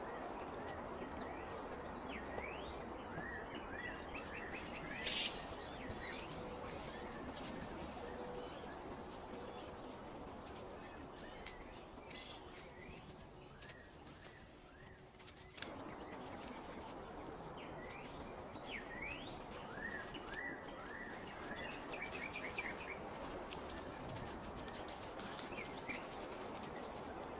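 Small forest birds chirping, short quick rising notes repeated throughout, over a steady outdoor background hiss. A single sharp click about halfway through.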